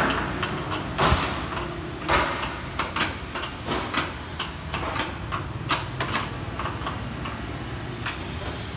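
Metal-framed glass sliding door panel being handled and slid in its frame: scattered knocks and rattles of the frame, with a few short scrapes, over a steady low background rumble.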